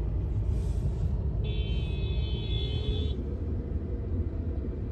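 Low steady rumble inside a car's cabin as it creeps along in heavy traffic. About a second and a half in, a steady high tone sounds for under two seconds.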